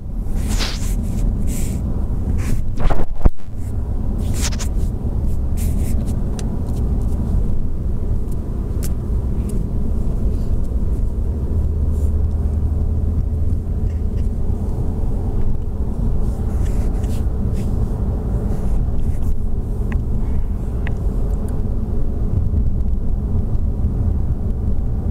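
Steady low road rumble of a moving car, heard from inside the cabin. A few knocks and rubbing sounds in the first few seconds come from the phone being handled.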